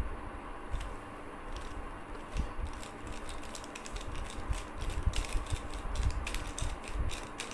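A 3x3 Rubik's Cube being turned by hand: quick plastic clicks as its layers snap round, sparse at first and coming fast in the second half as the four-move sequence is run through.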